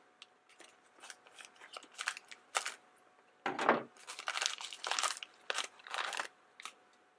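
A small plastic blind-bag packet crinkling and crackling in the hands as it is opened, in irregular bursts, the loudest about halfway through.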